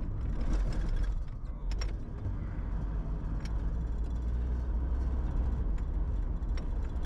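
Car rolling over railroad tracks, heard from inside the cabin: a steady low road rumble with a cluster of knocks and rattles about half a second to two seconds in as the wheels cross the rails, then a few light rattles as it drives on.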